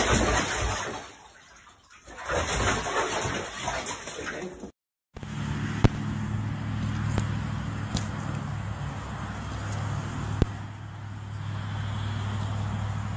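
Water sloshing and splashing as an animal moves about in a shallow bathtub. After a short break, a steady low mechanical hum takes over, with three sharp clicks.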